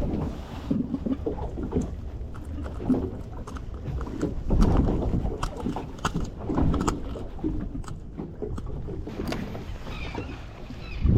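Low rumble of a small boat out on the water, with scattered knocks and bumps.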